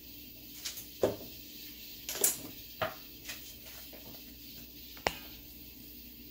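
Several short clicks and knocks from a canister of ground black pepper being handled, its shaker lid opened, over a low steady hum. The loudest knocks come about a second and two seconds in, with a last sharp click about five seconds in.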